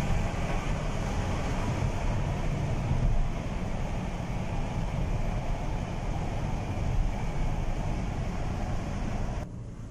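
Road noise heard inside a moving car's cabin: a steady low rumble of tyres and engine with a hiss of air over it. Near the end it cuts abruptly to a quieter, duller rumble.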